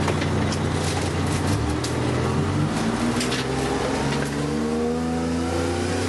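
Fire engine's engine running under way, heard from inside the crew cab, climbing steadily in pitch through the second half as the truck accelerates. Sharp rattles and clicks in the cab over the first half.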